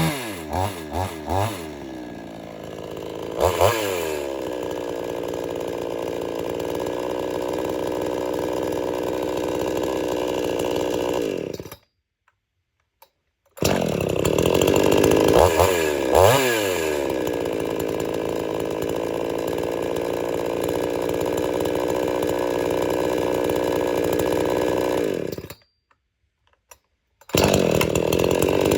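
Two-stroke chainsaw engine running: three quick throttle blips at the start, another rev a few seconds in, then running steadily at speed. It cuts out abruptly to silence twice, for a second or two each time, and comes back with more revs after the first gap.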